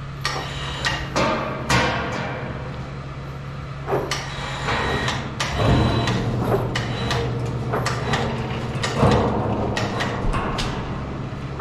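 Repeated sharp metallic clanks and knocks, irregular and a few seconds apart, from rigging and handling gear on a hoist, over a steady low engine hum.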